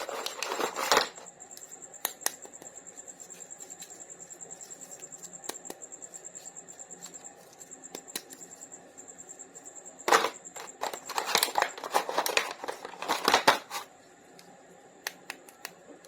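Rustling and crinkling of toy packaging being handled and opened, in two loud spells near the start and about ten seconds in. Between them comes a steady fast ticking, about six ticks a second.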